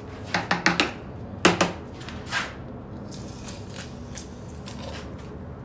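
A few sharp clicks and knocks, the loudest about a second and a half in, as a length of white plastic conduit used as a mortar jointer is taken up from a plastic bucket; then faint scraping as the jointer is run along the fresh mortar joints between glass blocks.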